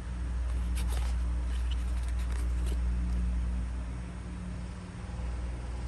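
A low steady rumble throughout, with a few faint crisp rustles and clicks about one to three seconds in as a cardboard perfume sample card is handled and turned over.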